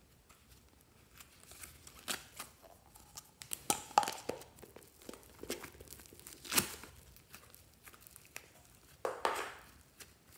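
Thick foamy slime being pulled and stretched by hand, giving scattered crackles and tearing sounds with a few sharp pops, and one longer tearing rustle near the end.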